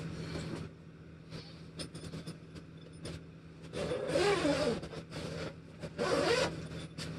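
Zipper of a padded guitar gig bag being pulled open in two long runs, the first about four seconds in and a shorter one about two seconds later.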